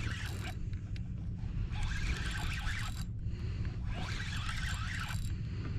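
Spinning reel cranked in spells of about a second while a fish is played on a bent rod, over a steady low wind rumble on the microphone.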